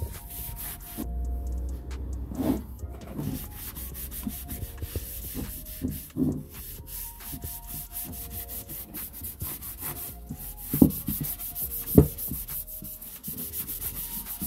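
A cloth rubbing Danish oil into the faces of an oak box, a continuous dry wiping over the wood. A few sharp knocks come in between, the loudest near the end.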